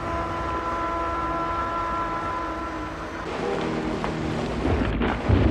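Dramatic score of long held notes over a steady low rumble of heavy rain. Just before the end, a much louder rush of rain and thunder cuts in.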